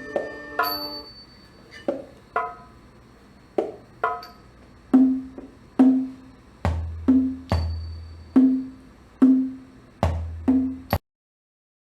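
Thai classical ensemble percussion playing the closing strokes of a piece. Spaced knocks, deep drum strokes and a few high ringing metal strikes fall about one or two a second, and all sound stops abruptly about eleven seconds in.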